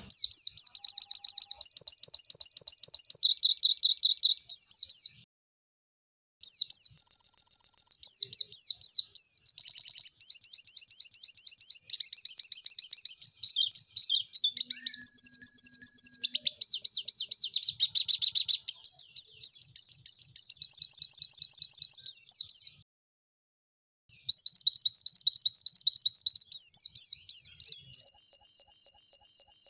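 Male white-eye (pleci) song as a recording for training caged birds: fast, high-pitched rapid-fire trills and repeated notes. The song stops twice, briefly and cleanly, about five seconds in and again about 23 seconds in.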